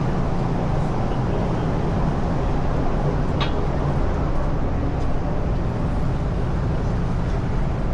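Steady city street traffic noise: a continuous low rumble of vehicles, with one brief click about three and a half seconds in.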